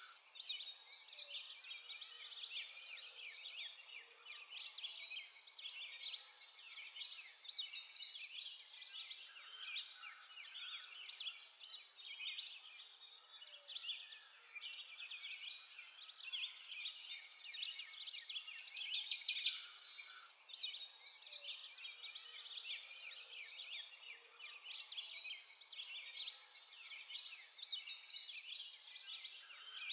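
A dense chorus of many small birds chirping, their short high calls overlapping continuously with irregular louder swells.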